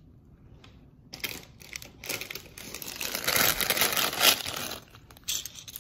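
Clear plastic bag of Lego pieces crinkling, with the small plastic bricks inside rattling and clicking as it is handled and shaken. It starts about a second in, is loudest in the middle and ends with a short burst.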